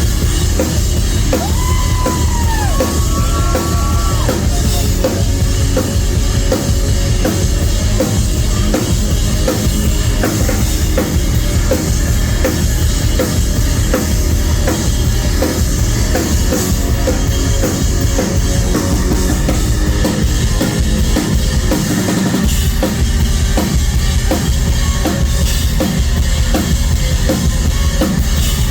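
Live rock band playing loudly, with a driving drum kit, heavy bass and electric guitars. The sound is captured on a phone in the crowd.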